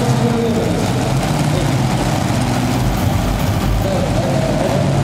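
Multi-engine modified pulling tractor idling steadily, its open-stacked engines running at low revs at the start line.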